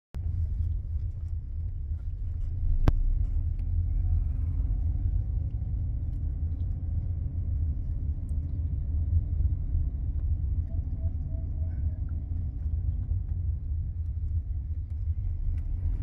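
Low, steady rumble of a car on the move, heard from inside the cabin, with one sharp click about three seconds in.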